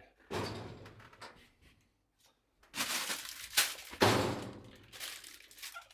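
Rummaging through workshop shelves and boxes: objects shifted and knocked about in a string of thuds and clatters, the loudest a little past the middle.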